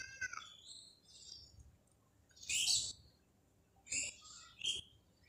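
Small birds chirping in the background: a handful of short, high calls scattered through, with quiet between them.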